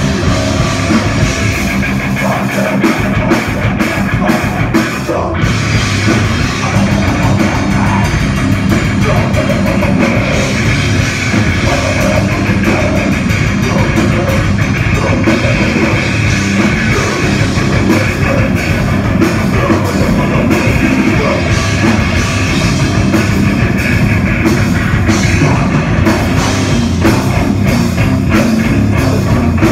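Heavy metal band playing live: distorted electric guitars and a drum kit, loud and dense.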